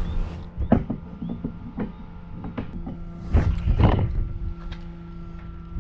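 Irregular knocks and clicks of hands working a bulkhead fitting on a tank, with a louder cluster of clatter about a third of the way in and another past halfway, over a steady low hum.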